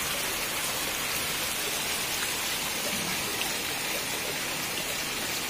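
Steady rain falling on wet hard ground, an even hiss.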